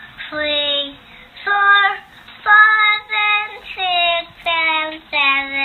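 A young child singing a simple tune without accompaniment, a string of held notes of about half a second each, stepping up and down in pitch.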